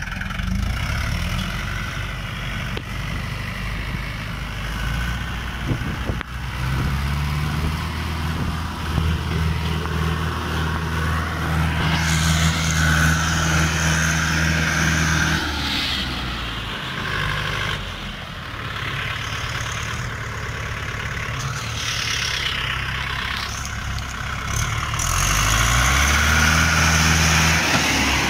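Mahindra 475 DI tractor's diesel engine working under heavy load as it pulls a loaded sugarcane trolley through rain-soaked mud. The engine speed shifts a few times and rises near the end.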